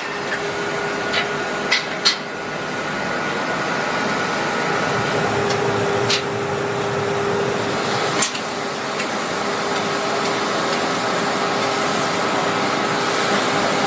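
Factory machinery running with a steady hum and whine, broken by a few sharp clicks or knocks, three in the first two seconds and more about six and eight seconds in.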